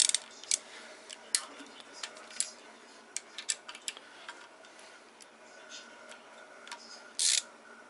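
Hand ratchet with a long extension working the oil pan bolts loose on a VR6 engine: scattered sharp metallic clicks and ticks of the ratchet and tool on metal, with a louder brief rasp about seven seconds in.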